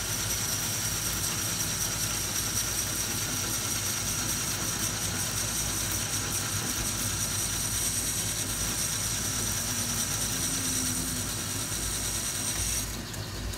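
Metal lathe running while its cutting tool turns down a shoulder on 1-inch round bar stock. The cut gives a steady high-pitched whine over the motor's hum. The whine stops abruptly about a second before the end as the cut finishes, and the lathe keeps running.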